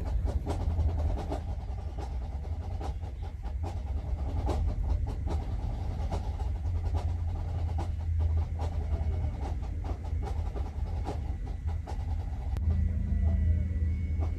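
A vehicle on the move: a steady low rumble of engine and road, with frequent rattles and knocks.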